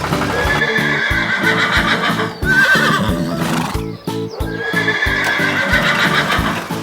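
A horse whinnying, with wavering high calls over steady upbeat background music.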